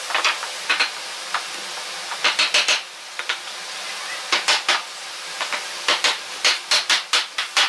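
A hammer tapping on wood in quick runs of sharp knocks, driving the mortise-and-tenon joints of a pine frame together. A steady hiss lies underneath.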